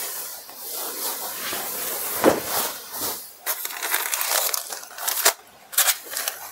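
Silk and jute tissue sarees rustling and crinkling as they are gathered up, moved and laid out on a tiled floor, in short uneven rushes with a few sharper swishes.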